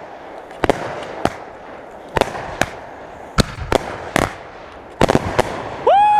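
Consumer fireworks going off: a string of sharp, separate bangs from Excalibur canister mortar shells and cakes, about nine in a few seconds. Near the end a loud, long, steady high-pitched whistle-like tone starts.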